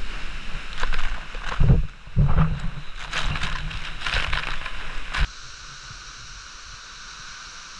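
Water sloshing and splashing in irregular bursts. About five seconds in, this gives way suddenly to a steady, quieter rush of flowing water.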